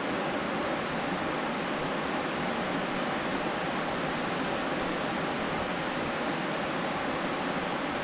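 Steady, even rush of a small creek waterfall pouring into a pool.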